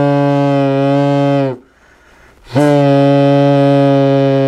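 Homemade straw-blown kazoo, a plastic bottle with a stretched rubber membrane, buzzing as breath through the straw sets the membrane vibrating. It plays two long, steady buzzing notes: the first ends about a second and a half in, and the second starts about a second later. Each note dips slightly in pitch as it dies away.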